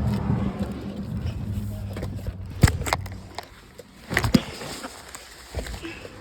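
Knocks and clatter of people climbing into a car and settling in, over a low steady hum that fades out a little past halfway. The sharpest knocks come in a pair near the middle and a cluster about two-thirds of the way in.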